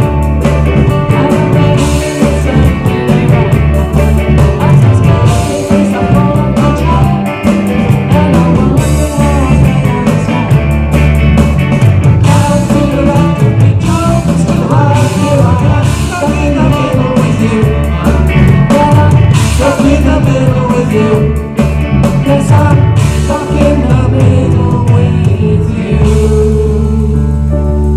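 Live rock band playing a song with a singer, with drums, bass and a sung melody over a steady beat.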